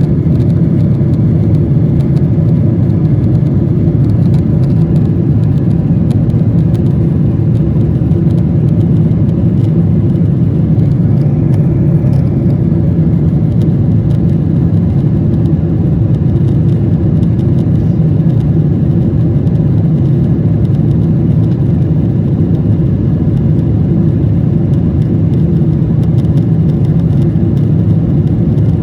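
Steady low drone of an aircraft's engines and rushing air, unchanging in pitch and level.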